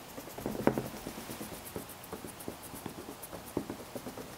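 Paintbrush dabbing paint onto paper pinned to an easel board: a run of soft, irregular taps and scratches, with a few louder knocks.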